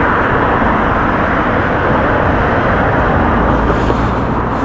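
Steady roadside traffic noise, with a vehicle's low rumble growing in the last couple of seconds as it passes.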